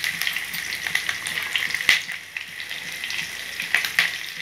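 Green chillies and onion pieces frying in hot oil in a kadai: a continuous sizzle dotted with small crackles, with a sharper pop about two seconds in, as more onion pieces are dropped into the oil.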